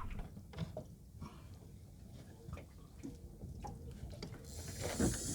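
Scattered faint clicks and knocks of gear being handled, then about four and a half seconds in a high, even whirring starts: a fishing reel's drag paying out line as a fish takes the bait and runs.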